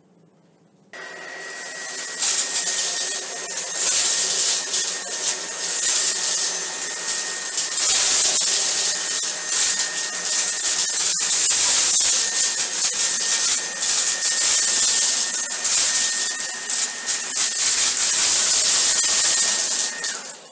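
Tineco PURE ONE S11 cordless stick vacuum, soft-roller hard-floor head, in auto power mode. It starts about a second in and runs with a steady high whine and hiss, with a stream of small clicks as debris is sucked up off the tile. Near the end its whine drops and it winds down.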